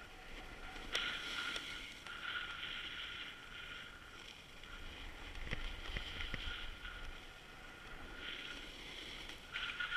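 Edges scraping and hissing across groomed, packed snow during a downhill run, swelling and fading with each turn, with a few sharp clicks and a light wind rumble on the microphone.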